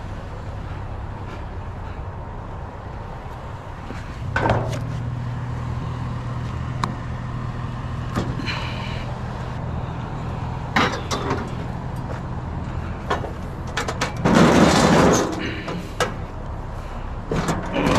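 Vehicle engine running, with scattered knocks and rattles and a loud rushing noise lasting about a second near the end.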